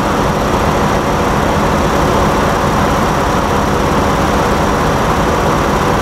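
A 2015 Ford Transit's 3.5-litre V6 idling steadily with cylinder 5 misfiring: its ignition coil gets too weak a control signal to fire.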